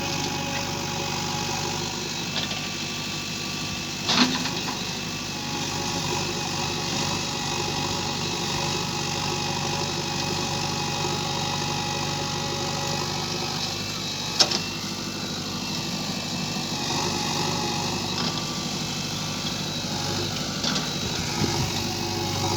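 JCB excavator's diesel engine running steadily, with two sharp knocks about four and fourteen seconds in.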